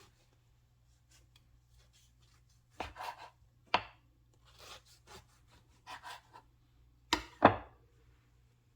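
A knife cutting through loaves of gluten-free pumpkin bread: scattered soft scrapes and knocks, with two sharper knocks near the end being the loudest.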